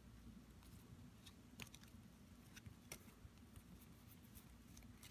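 Faint handling of freshly unwrapped trading cards: a few soft clicks and taps as the stack is straightened, over a low room hum.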